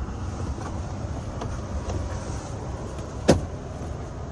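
A RAV4 interior plastic trim panel being pried open, with one sharp, loud snap about three seconds in as a retaining clip pops loose, over a steady low rumble.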